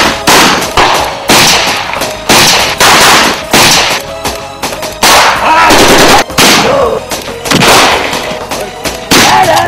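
Repeated gunshots from long guns in a film gunfight, roughly one a second, each with an echoing tail, over background music.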